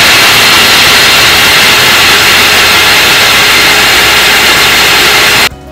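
Sujata Dynamix mixer grinder running at full speed, its stainless steel jar grinding nuts, seeds and curd into a fine wet paste. The motor stops suddenly near the end.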